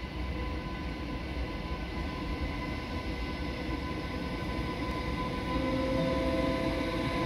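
DB class 101 electric locomotive approaching on the station tracks: a steady rumble with a hum, growing slowly louder, with new whining tones joining about five and a half seconds in as the locomotive draws near.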